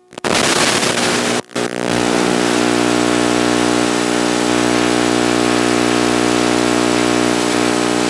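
Static hiss from the FPV video link's audio, cutting out sharply twice in the first two seconds. It then settles into a steady buzz made of many evenly spaced tones that holds unchanged.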